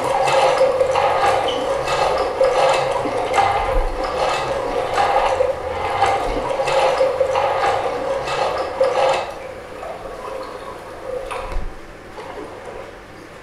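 Mechanical ratcheting strokes repeating a little over once a second over a steady hum, stopping about nine seconds in, followed by a few quieter knocks.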